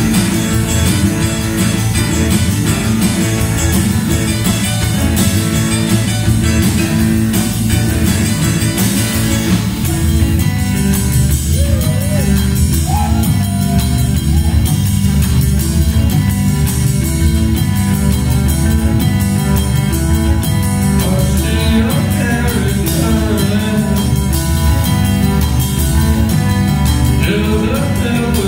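A rock band playing live, with electric guitar over bass and drums and a steady beat. About ten seconds in the higher parts drop back, leaving the bass and drums to the fore.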